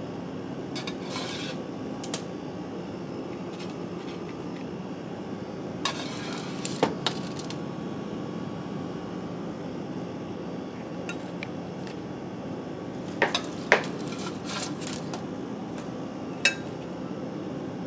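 Scattered light clicks and clinks of a kitchen utensil against a foil-lined baking sheet and a glass serving plate as roasted asparagus spears are moved onto the plate, a few at a time, over a steady low hum.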